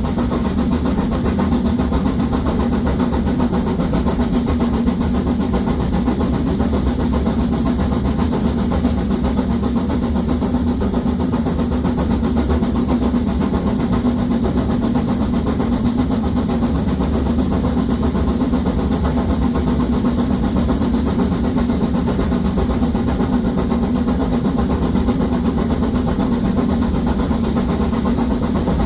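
Narrow-gauge steam locomotive 99 7240-7 working hard up a steep 1:25 gradient with seven full coaches behind it: a loud, steady, unbroken exhaust beat.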